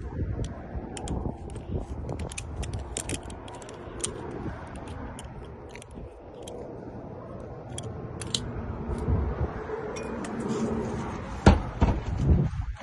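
Lock picks working in a door lock cylinder: many small metallic clicks and scrapes, with a sharp knock about eleven and a half seconds in.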